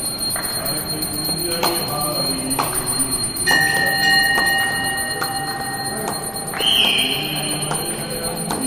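Temple bells ringing for evening aarti: repeated strikes, with clear ringing tones that hang on from a little over three seconds in and a bright, high ring about two thirds of the way through.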